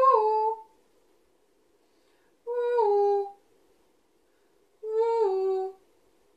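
A woman's voice gives three short two-note calls for an echo exercise, each stepping down from a higher note to a lower one. A pause of about two seconds follows each call, left open for the listeners to repeat it.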